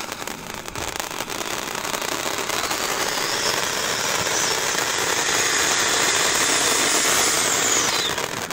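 Cone fountain firework spraying sparks: a steady hissing rush that grows louder over several seconds, then stops sharply near the end as the fountain burns out.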